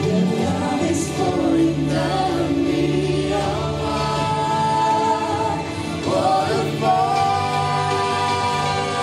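Music: a song with choir-like singing in long held notes, the voices gliding up into a new sustained chord about six seconds in.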